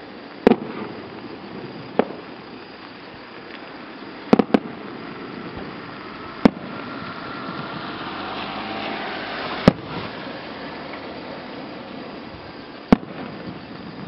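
Aerial firework shells bursting one at a time, each a sharp bang a second or a few seconds apart, about seven in all, with two in quick succession about four seconds in. The slow, intermittent pace of single booms is typical of a small rural display.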